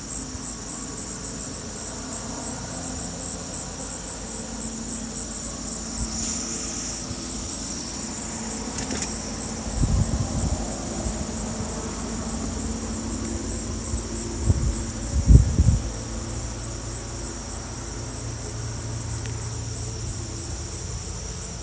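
A steady, high-pitched insect chorus, with a low, steady drone underneath. The recorder likens the drone to a jet or engine overhead, though no aircraft can be seen. A few low thumps come near the middle.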